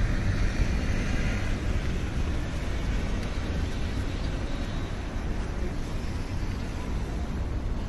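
Steady city street noise: a low, even traffic rumble with no distinct single event standing out.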